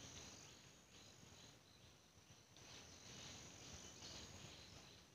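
Near silence, with insects chirring faintly and steadily at a high pitch in the forest.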